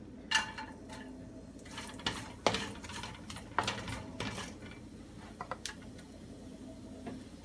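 Sliced carrots tipped into a nonstick wok of hot oil and stirred with a wooden spoon: a handful of separate knocks, scrapes and clinks of spoon and glass bowl against the pan.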